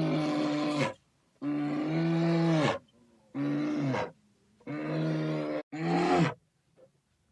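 An animal calling five times in a row: loud, drawn-out roaring calls held at one pitch, each dropping off at its end, with short pauses between.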